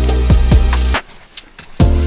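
Background electronic music with a deep, steady bass and a regular beat, which cuts out for nearly a second midway and then comes back in.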